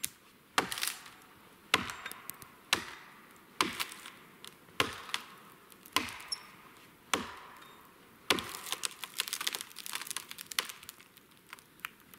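An axe chopping into a dead standing tree, one sharp strike about every second, seven in a row, followed from about eight seconds in by a denser run of cracking and splintering wood lasting a couple of seconds.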